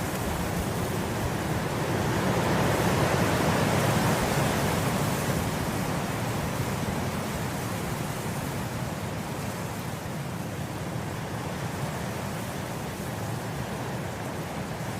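Wind blowing through grass, a steady rushing that swells into a stronger gust a couple of seconds in, then eases back.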